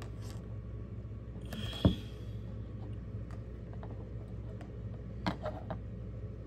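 Quiet handling noises over a steady low hum: a brief rustle with a sharp tap just before two seconds in, then a few light clicks near the end.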